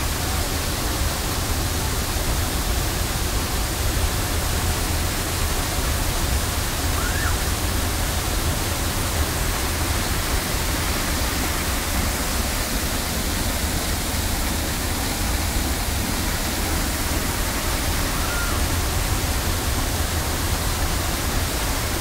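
A waterfall heard from just behind its falling curtain of water: a steady rushing hiss with a deep rumble underneath.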